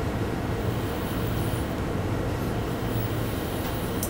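Steady low rumble of background room noise. No separate sound, such as the draw on the vape, stands out above it.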